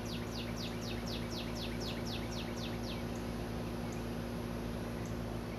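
A songbird sings a quick run of about a dozen falling whistled notes, about four a second, stopping about three seconds in. Under it is the steady hum of an air-conditioner condenser unit.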